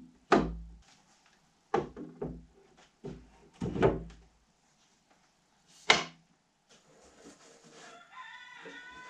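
Wooden cabinet panels of a flat-pack kitchen island knocking and thudding against each other and the concrete floor as they are handled and stood up: several sharp knocks over the first six seconds. Then quieter rubbing, with a faint high squeak near the end.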